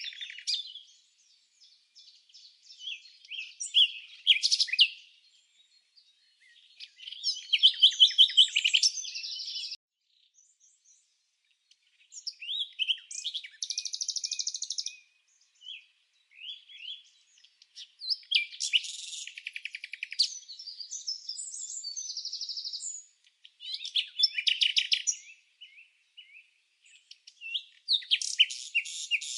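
Birds chirping and trilling in high-pitched bouts of a few seconds each, with short quiet gaps between bouts.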